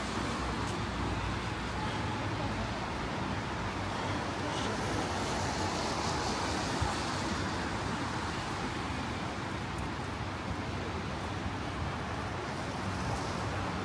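Steady city street traffic on a rain-wet road: a continuous wash of passing cars and tyre noise, swelling as a vehicle goes by about five seconds in.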